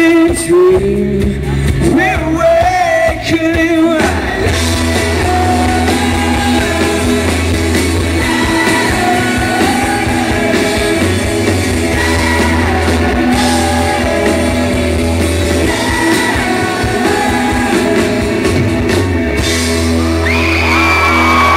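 Rock band playing live, heard from within the audience: electric guitars, bass and drums with singing.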